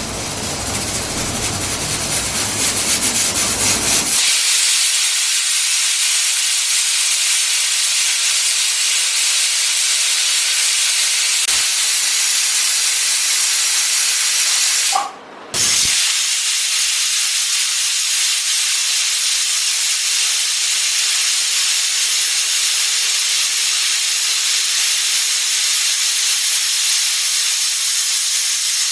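Pressure cooker whistle venting steam: a loud, steady hiss, with a lower rumble under it for the first four seconds. It cuts out for about half a second halfway through.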